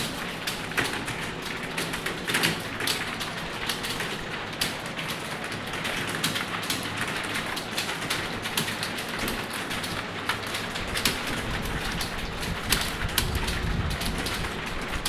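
Typing on a computer keyboard: a fast, irregular run of key clicks. A low rumble joins in about eleven seconds in.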